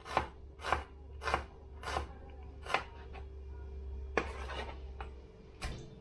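A chef's knife chopping a white onion on a plastic cutting board: five sharp chops a little under a second apart, then a short scrape about four seconds in as the blade gathers the pieces, and one more tap near the end.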